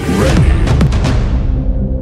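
Electronic trailer-style intro music opening on a sudden loud boom hit, whose bright hiss fades away over about a second and a half, with a few sharp strokes near the one-second mark over a steady low bass.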